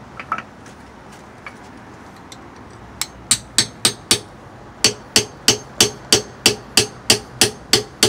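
Claw hammer striking a steel rod driven into a wax-packed pilot bearing bore in the rear of a crankshaft: about three sharp metallic blows a second, beginning about three seconds in, with a short pause after the first five. A few light clicks come first as the rod is set in place. Each blow squeezes the packed candle wax against the pilot bearing to press it out of the crankshaft.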